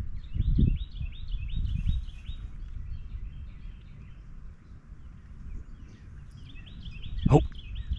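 A bird singing quick runs of repeated chirps, once near the start and again near the end, over a low rumbling noise. A single sharp knock sounds about seven seconds in.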